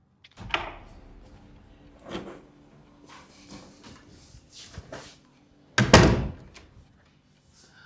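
A few knocks and thumps, the loudest about six seconds in, over a faint steady hum.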